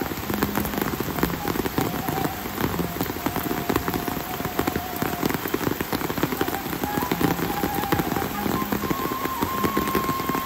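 Steady rain falling, a dense continuous spatter of many close drops on surfaces. A faint thin steady tone runs underneath.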